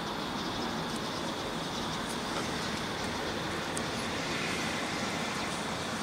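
Steady outdoor background noise with no distinct events, and a faint steady high-pitched hum running through it.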